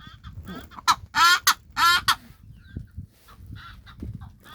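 A bird call played back from a phone app: a loud group of three harsh, wavering notes about a second in. The same group repeats at even spacing, as a loop does, with fainter bird calls in between.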